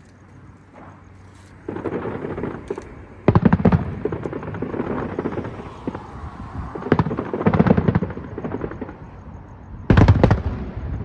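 Aerial fireworks going off in rapid crackling volleys of bangs, in waves that start about 2, 3.5, 7 and 10 seconds in. The waves at 3.5 and 10 seconds are the loudest.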